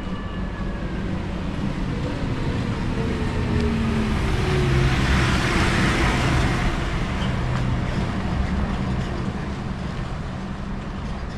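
Road traffic sound: a steady low rumble with a vehicle passing, swelling to its loudest about halfway and then fading, with a faint falling pitch as it goes by.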